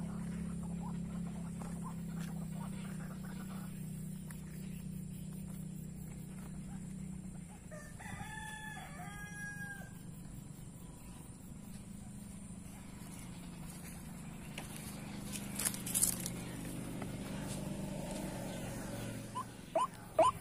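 A fowl crowing once, a stepped call in two held parts about eight seconds in, over a low steady hum. Short, sharp calls begin repeating about twice a second near the end.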